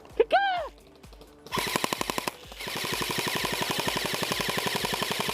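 Airsoft gun firing full-auto: a short burst about a second and a half in, then after a brief pause a long burst of rapid shots, roughly fifteen a second, that stops right at the end. Just before the firing there is a short rising-and-falling whoop, and faint background music with a steady beat runs underneath.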